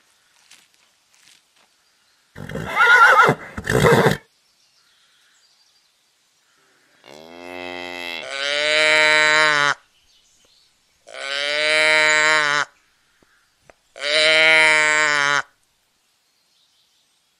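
Cattle mooing: three long, low calls a few seconds apart, the first rising in pitch as it starts. Before them, about two and a half seconds in, comes a short rough animal call in two parts.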